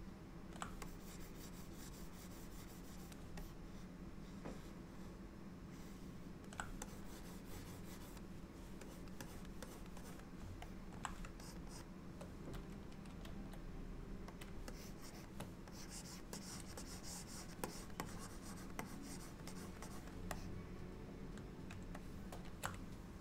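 Stylus scratching and rubbing on a graphics tablet in short strokes, with a few sharp clicks and a steady low hum underneath.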